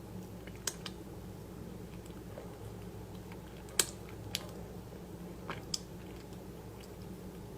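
A few sharp, crisp crunches while someone eats, about six scattered clicks with the loudest a little under four seconds in, over a steady low hum.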